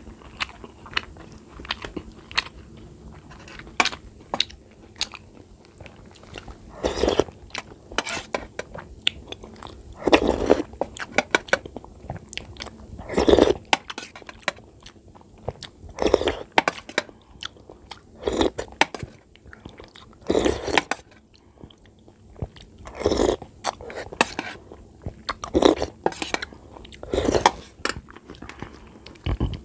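Close-up wet chewing of rice and curry eaten by hand, with many small mouth clicks and lip smacks and a louder mouthful every two to three seconds.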